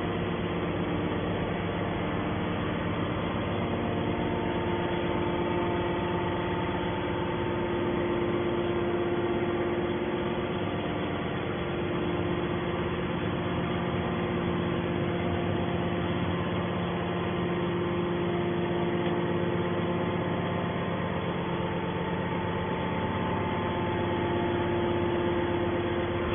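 Hydraulic baler machine running steadily: a constant motor and pump hum with several fixed tones that hold the same pitch throughout.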